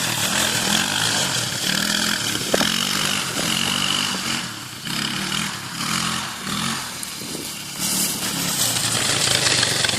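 Quad bike (ATV) engine running under a rider's throttle, its pitch rising and falling, easing off around the middle and picking up again near the end, with one sharp click about two and a half seconds in.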